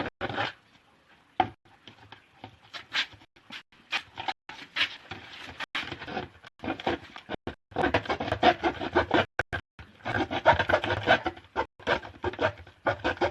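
A hard plastic dustpan being cut by hand: rough rasping strokes in irregular bursts, sparse at first and heaviest in the second half.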